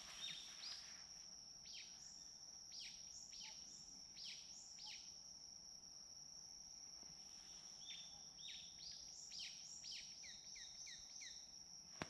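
Faint woodland birdsong at dawn: small birds giving quick, short calls that drop in pitch, in two runs, over a steady high insect trill.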